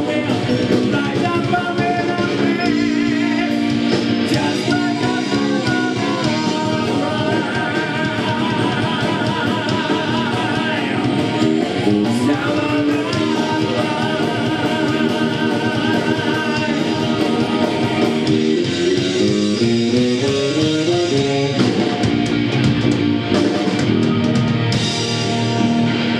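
Heavy metal band playing live: distorted electric guitar, bass and drum kit, with a male vocalist singing long wavering held notes. A climbing run of notes comes about three quarters of the way through.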